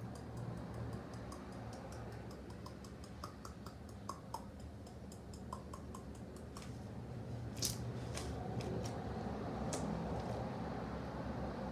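Slime being squished and worked by hand, giving a run of small quick clicks and pops, about five a second, then a few louder sharp snaps.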